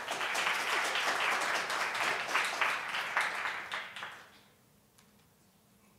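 Audience applauding: a round of clapping that fades out about four seconds in.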